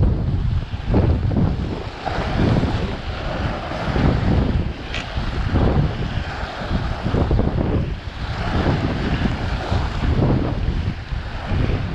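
Sea surf breaking and washing over shore rocks in repeated surges, with wind buffeting the microphone.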